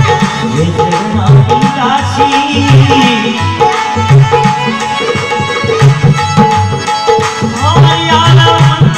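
Dholak played in a steady, driving folk rhythm, its low head struck in an even pattern, over steady held melodic notes.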